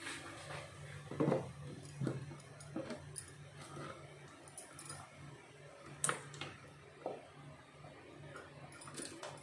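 Scattered soft knocks and clicks of a steel mixer-grinder jar and its plastic lid being handled and set on the grinder base, the loudest about a second and about six seconds in; the grinder motor is not running.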